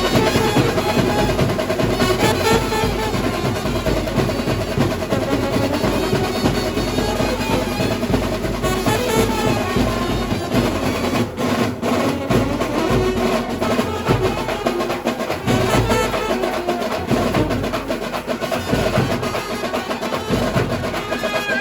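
A dhumal band playing a sawari dhun: saxophones carrying the tune over dense drumming with drum rolls.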